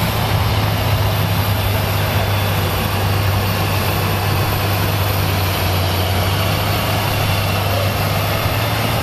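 John Deere tractor's diesel engine running flat out under heavy load as it drags a weight-transfer sled, a steady heavy drone with a thin high whine above it.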